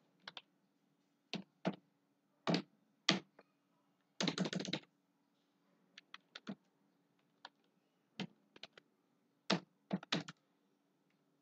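Typing on a computer keyboard: irregular single keystrokes and short runs of keys, with a quick flurry of keys about four seconds in.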